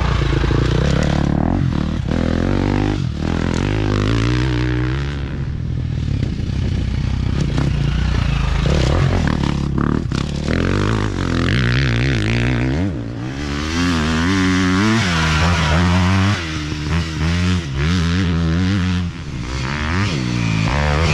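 Dirt bike engines revving hard as race bikes pass one after another, the pitch climbing and dropping again and again with throttle and gear changes.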